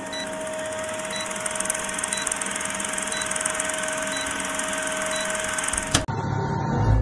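Old film projector sound effect: steady mechanical whirring and hiss with a short blip about once a second, cutting off with a sharp click about six seconds in.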